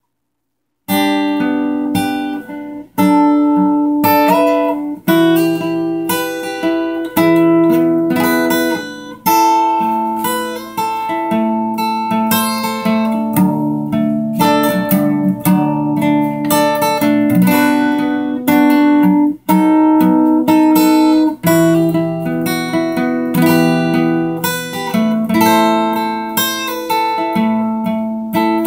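Acoustic guitar strumming chords, starting about a second in.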